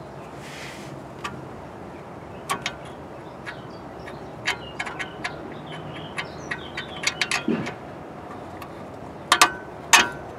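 Irregular metal clicks and clinks as a new suspension ball joint is worked by hand onto the lower control arm's bolts, the loudest knocks coming near the end.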